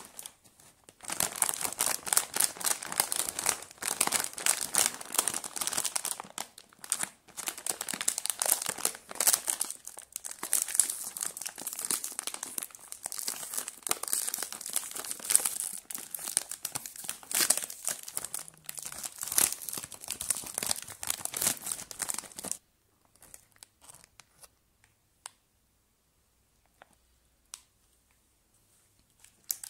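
A Snackers chips packet, a foil-lined plastic snack bag, crinkling and tearing as it is pulled open by hand. The dense rustling starts about a second in and stops about three-quarters of the way through, leaving only a few faint ticks.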